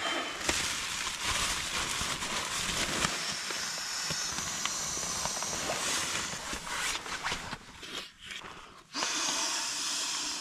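Exped nylon pump bag being blown into and squeezed to inflate a sleeping pad: a long rush of air with the bag crinkling. It breaks off briefly about eight seconds in, then another rush of air follows.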